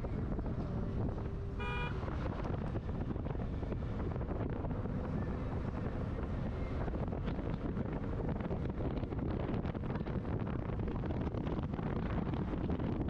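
Steady road and engine noise of a car driving fast, with wind buffeting the microphone. A short horn beep sounds about two seconds in.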